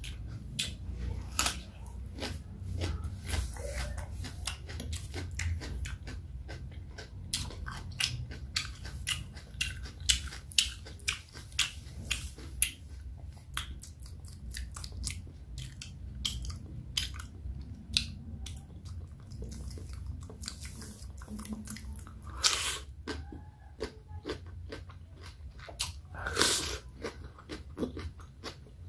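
Close-miked ASMR wet mouth sounds of a person biting, crunching and chewing raw cucumber: many short, crisp clicks and crunches, with two longer, louder bites near the end.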